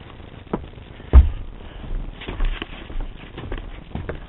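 Footsteps and knocks on a wooden deck, with one heavy thump about a second in and scattered light clicks and rustling after it.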